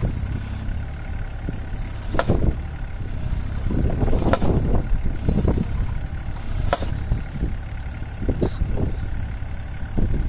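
Takeuchi TB216 mini digger's diesel engine running steadily while the homemade hydraulic post driver drops its 55 kg weight onto a 6-inch fence post. Three sharp impacts land about two seconds apart.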